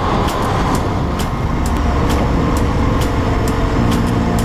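Steady, loud engine, wind and road noise of a motorcycle riding at speed through a road tunnel.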